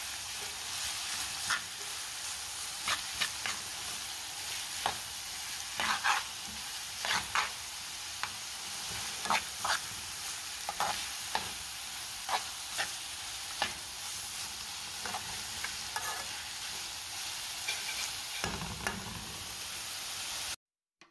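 Chopped onion and flaked fish sizzling in a frying pan while a metal spoon stirs and scrapes, with irregular sharp clinks of the spoon against the pan. The sound cuts off suddenly near the end.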